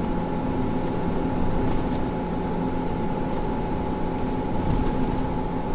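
Car cruising at expressway speed, heard from inside the cabin: steady road and engine noise with a faint, constant hum.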